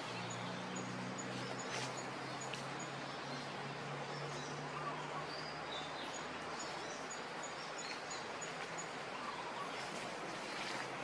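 Outdoor forest ambience: a steady hiss with scattered high bird chirps and calls, and a low steady hum through the first half that fades out about halfway.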